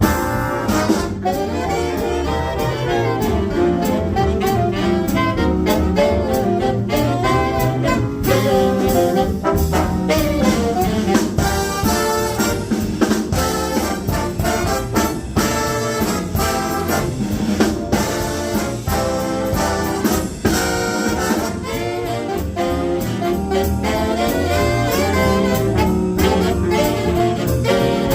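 Jazz big band playing an instrumental passage: trumpets, trombones and saxophones over a swinging rhythm section with steady cymbal and drum beats.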